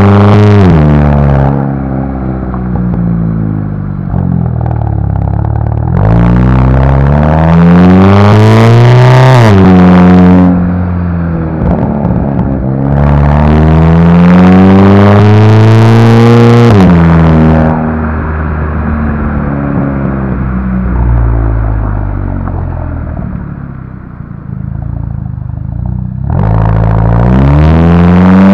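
Loud exhaust note of a 2015 Volkswagen GTI's 2.0-litre turbocharged four-cylinder with the rear muffler removed, heard right at the tailpipe. It makes several hard pulls, the pitch climbing through each gear and dropping sharply at each upshift. Between pulls come quieter stretches off the throttle, the longest in the second half, before a final pull near the end.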